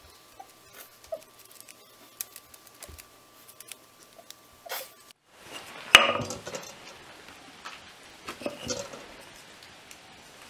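Handling of sword fittings and the wooden handle on a workbench: small scattered clicks and taps of metal and wood. About six seconds in there is one sharp knock with a brief ring, then a few lighter knocks.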